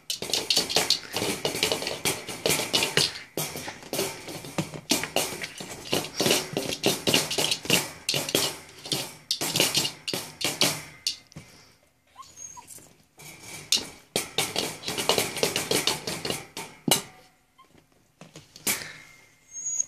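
Dog playing with a hard plastic ball in a wire crate: rapid clattering, scraping and knocking as paws and teeth scrabble at the ball and it bumps the crate. The noise comes in busy bursts and goes quiet twice, about eleven seconds in and again near the end.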